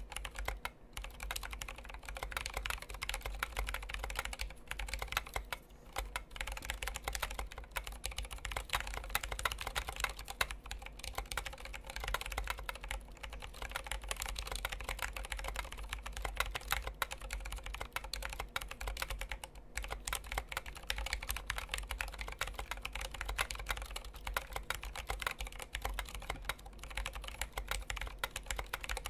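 Continuous typing on a Tokyo60 60% mechanical keyboard with Krytox 205g0-lubed Zealios 67g tactile switches and dye-sub keycaps: a dense run of keystroke clacks with a few brief pauses.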